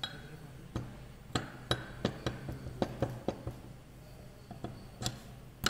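Metal clicking and clinking as a toothed gear shaft is worked by hand into the aluminium housing of a Fiat tractor hydraulic pump: a quick run of about a dozen sharp taps, then a few more near the end.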